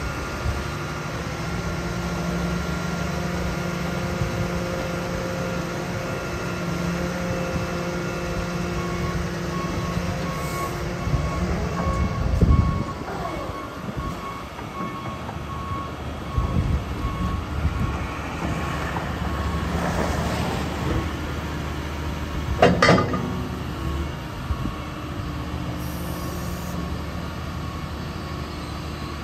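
Doosan DX170W-5 wheeled excavator running, its engine and hydraulics working steadily as the boom and arm are moved, with a held whine. Two louder knocks stand out, a heavy one about twelve seconds in and a sharp one about twenty-three seconds in.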